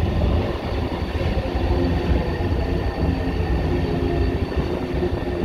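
São Paulo Metro Line 3 fleet H train running past on the rails: a steady rumble of wheels on track with a high whine held over it that grows a little stronger in the second half.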